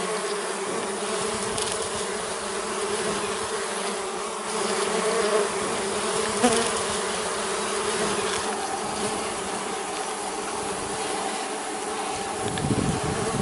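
Steady buzzing hum of many Uruçu nordestina (Melipona scutellaris) stingless bees at their wooden hive box, with a brief low rumble near the end.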